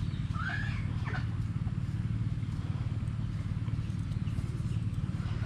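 A chicken clucking, with one short rising call about half a second in and a few brief faint calls after it, over a steady low rumble.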